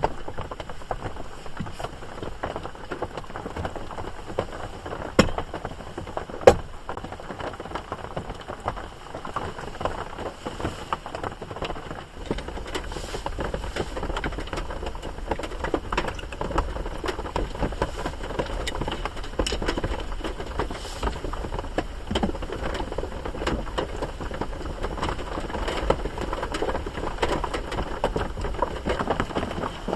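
Steady rain, with a dense patter of drops tapping on a surface and two louder single drops about five and six and a half seconds in. A low rumble joins the patter from about twelve seconds in.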